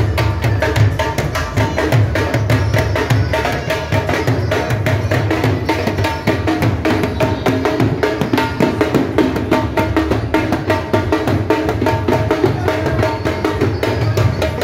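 Live dhol drumming, a fast, steady beat that runs without a break.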